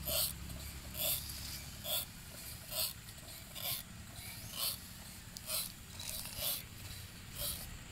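Backpack (knapsack) sprayer being pumped by its hand lever: a short hissing stroke repeats evenly about once a second, nine in all.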